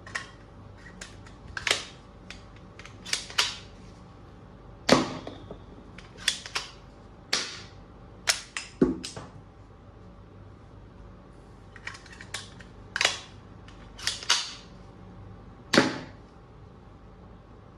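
Sharp plastic clicks and snaps from toy gun mechanisms being worked, about fifteen, irregularly spaced, some in quick pairs.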